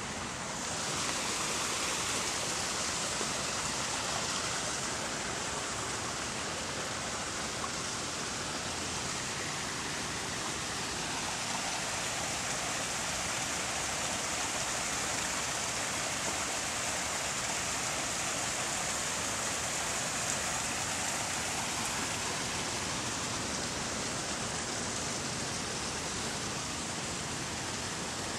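Steady rush of water from a garden waterfall and stream, a little louder from about a second in.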